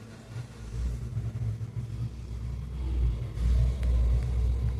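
A low rumble that swells about three seconds in.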